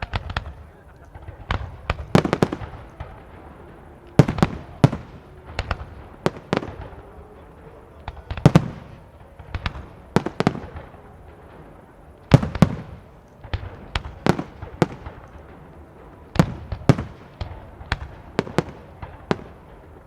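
Professional aerial fireworks display: a continuous run of shell bursts, sharp bangs at irregular intervals of about one to two a second, each followed by a rolling echo.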